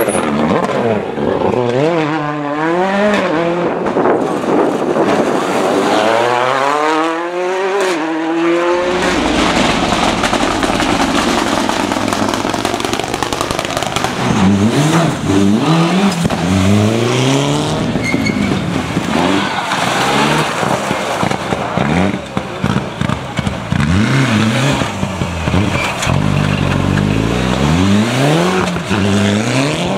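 Rally car engines at full racing revs on a special stage, pitch climbing as they accelerate and dropping sharply on each gear change or lift, with one long rising pull a few seconds in and a run of quick up-and-down revs in the second half.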